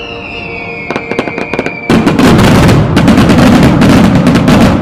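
Fireworks finale: a whistling tone falling slightly in pitch, a quick string of crackling pops about a second in, then from about two seconds a loud, dense, continuous barrage of bursts and crackle from a mass firing of silver crown shells.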